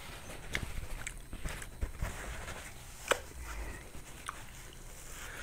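A man chewing a mouthful of sandwich with his mouth closed, close to the microphone: soft, wet mouth clicks and smacks about once a second, the sharpest about three seconds in.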